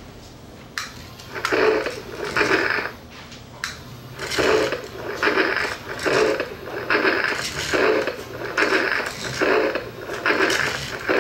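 Battery-operated remote-control T-Rex toy walking, its gear motor and plastic walking mechanism churning in a regular pulse about every 0.8 s, one pulse per stride. The pulses pause briefly in the first second and a half and again around the middle.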